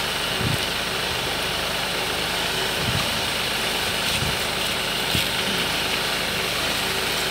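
Tractor engine running steadily as the tractor drives slowly with its mounted boom sprayer, with a few dull thumps.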